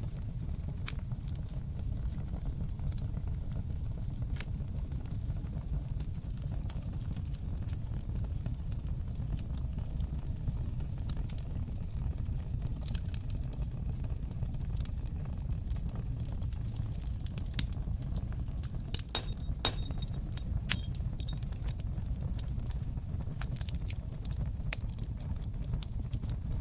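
Fire burning in a fireplace: a steady low rumble of the flames with scattered sharp crackles and pops, a cluster of them around twenty seconds in and one louder pop just after.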